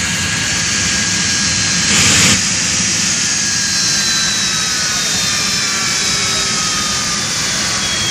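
Jet dragster's turbine engine running on the spot: a steady loud rush with a high whine that slowly falls in pitch, and a brief louder surge about two seconds in.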